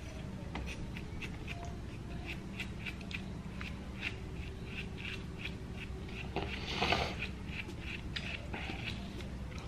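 Close-miked eating sounds of a man spooning and chewing shaved ice: a long run of small wet mouth clicks and smacks, with one louder, rough scrape or crunch about seven seconds in, over a steady low hum.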